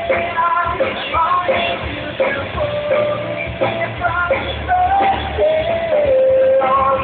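Live rock band playing with a lead singer holding long, gliding sung notes, sounding muffled with no treble.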